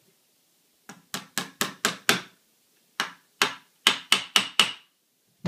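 Small hammer tapping a roll pin to drive it in and secure a Magpul MOE trigger guard. Two quick runs of about six sharp taps each, roughly four a second with a short pause between them, then one more tap near the end.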